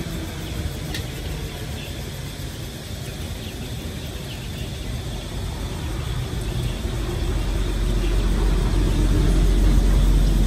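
Crimped dumplings deep-frying in a pot of oil, the oil sizzling, under a low rumble that grows louder from about seven seconds in.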